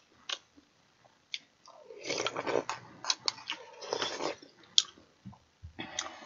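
Close-up eating sounds: budae-jjigae broth slurped from a bowl in two longer stretches, about two and four seconds in, between chewing. Scattered sharp clicks of the ladle and spoon against the pot and bowl come in between.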